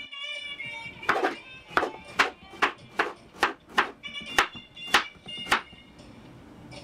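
Kitchen knife slicing a courgette into rounds on a wooden cutting board: about a dozen crisp chops, two or three a second, stopping about a second before the end.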